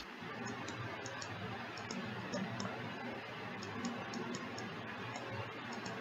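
Faint, irregular clicks of computer keyboard keys being pressed, over a steady hiss of microphone noise.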